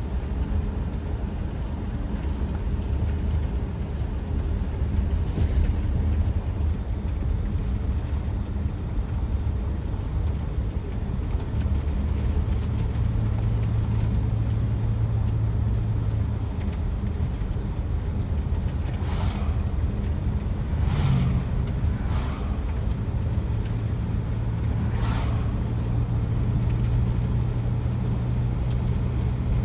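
Steady low drone of a vehicle on the move, road and engine noise, with a few short swishes in the second half.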